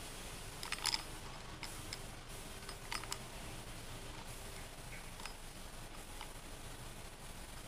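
Small clicks and taps of an overhead fishing reel's side plate and frame being handled and fitted together: a quick cluster about a second in and another around three seconds, with a few fainter ticks after.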